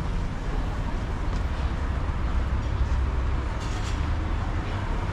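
Steady city street ambience: a continuous low rumble with an even hiss over it.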